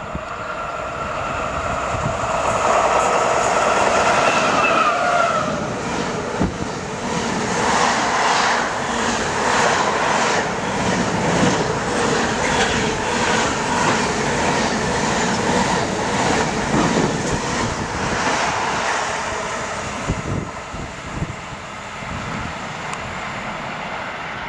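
Freight train running through at speed. The locomotive's note drops in pitch as it passes about five seconds in, then container wagons rattle by with a regular clickety-clack of wheels over rail joints, which eases off near the end.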